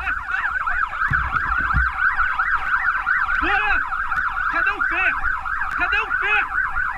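Police siren sounding in a fast yelp, a high tone warbling up and down about six times a second without a break.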